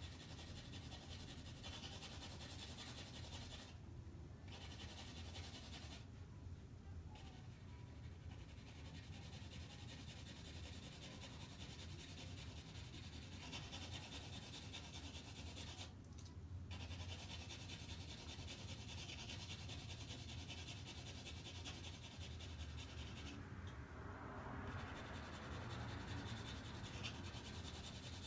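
Graphite pencil shading on toothy drawing paper: faint, steady strokes of the lead across the paper, broken by a few short pauses where the pencil lifts.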